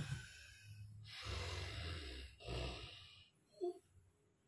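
A sleeping man snoring: two long rasping snores with a low buzz.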